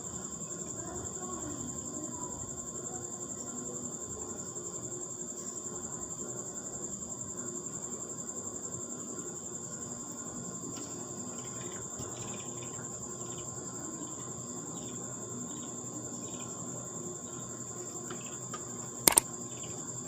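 Steady high-pitched trill of insects, with faint short chirps in the second half and a sharp click shortly before the end.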